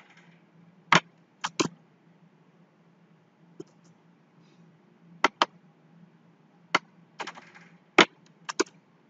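Computer mouse and keyboard clicks: about a dozen short, sharp clicks scattered irregularly, several in quick pairs, over a faint steady low hum.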